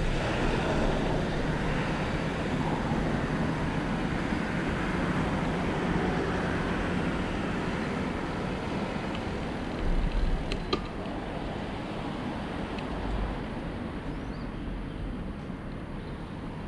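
Steady rushing outdoor noise of wind and road traffic heard while cycling. A brief low gust comes about ten seconds in, followed by a couple of sharp clicks.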